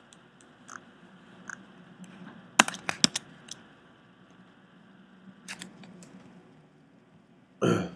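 Computer mouse and keyboard clicks: a quick cluster of sharp clicks about two and a half to three seconds in and a few more near six seconds, then a short louder thump near the end.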